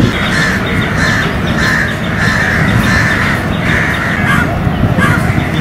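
Crows cawing repeatedly over a steady low rumble.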